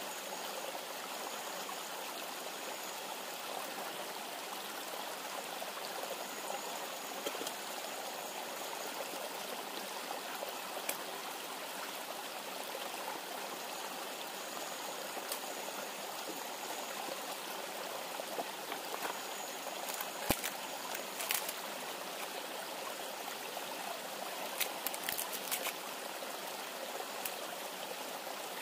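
Steady rushing of a river flowing close by, with a few sharp clicks and snaps from campfire wood being handled about two-thirds of the way in and again a few seconds later.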